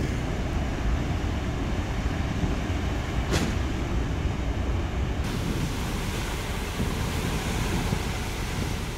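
Steady low rumble of a car ferry under way, with its wake churning and wind buffeting the microphone on the open deck. A single sharp click comes a little over three seconds in, and the hiss grows after about five seconds.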